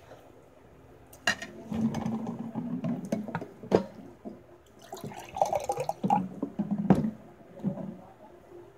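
Water poured from a plastic bottle into a drinking glass, splashing and gurgling, with a few sharp knocks.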